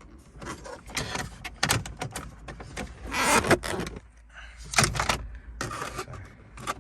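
Hard plastic car-dashboard parts and a phone mount being handled and fitted: irregular clicks and rattles with several short, louder scrapes.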